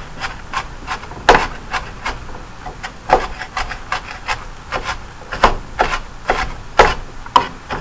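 Kitchen knife chopping diced red onion on a wooden cutting board: irregular sharp knocks of the blade on the wood, about two a second, with the blade scraping and rubbing through the onion between strokes.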